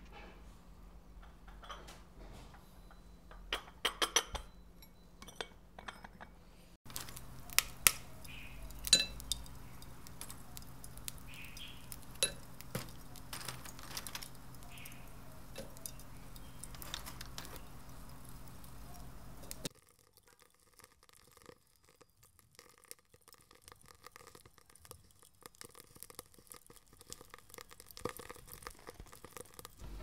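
A series of light clinks and taps as small porcelain and glass teaware is handled on a tea table. Then lumps of charcoal are set with tongs into a clay charcoal stove, clinking against one another and the stove rim.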